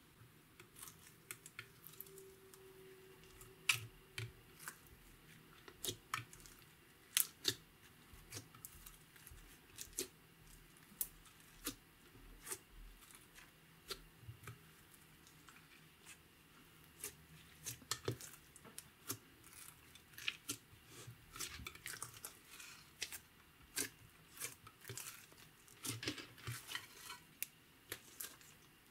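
Clear slime loaded with crushed eyeshadow powder and glitter being kneaded, folded and stretched by hand, giving irregular sticky clicks and pops that come thicker in the second half.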